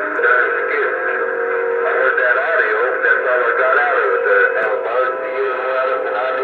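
Static-laden receiver audio from a President HR2510 ten-meter transceiver's speaker: several distant stations overlapping as garbled, pitch-shifted voices and whistling tones that warble and glide, typical of sideband signals heard slightly off-tune while the tuning knob is turned.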